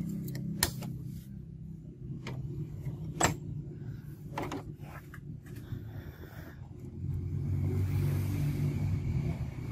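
Canon iP2770 inkjet printer: several sharp clicks as the ink cartridge is pushed into its carriage and the cover is shut, over a steady low hum. About seven seconds in, the printer's mechanism runs louder as the carriage and motors cycle.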